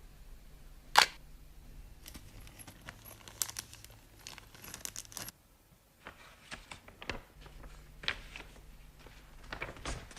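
Packaging and parts being handled: short rustles, tearing and small clicks. One sharp click about a second in is the loudest.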